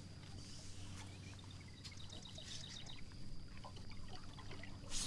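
Faint water lapping and trickling against a small boat's hull, with light scattered ticking and a short louder rush at the very end.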